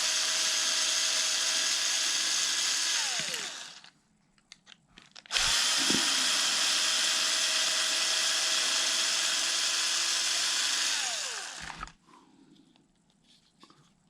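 Power drill-driver running twice to back out screws. Each run is a steady whine that falls in pitch as the motor spins down, with a few light clicks between the runs.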